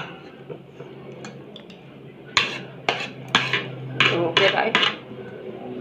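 Metal spoon and fork clinking and scraping against a plate while eating rice: a quiet stretch, then a run of about seven sharp clinks in the second half.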